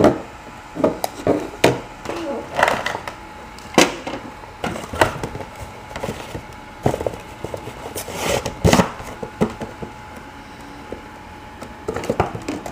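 A handheld radio and its cardboard box being handled on a desk: scattered knocks and taps, with rustling now and then as the radio goes back into its packaging in the box.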